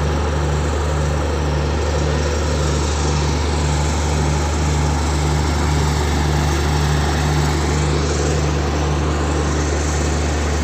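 Diesel generator sets of a train's luggage brake and generator car running steadily: a constant low engine drone with a regular pulsing hum.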